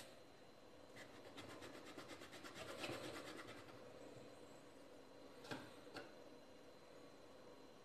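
Faint scraping and rubbing as a steel tumbler is twisted through rolled dough against a marble rolling board, cutting out a round. Two light knocks follow about half a second apart, some two-thirds of the way in.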